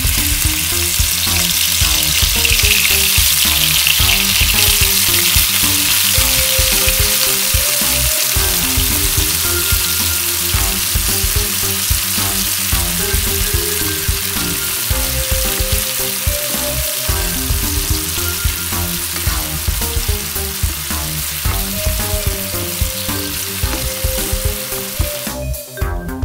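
Chopped chicken thigh pieces frying in hot oil in a nonstick pan: a loud, steady sizzle that starts as the meat goes in, strongest in the first few seconds and easing slightly after. A wooden spatula stirs the pieces, over background music.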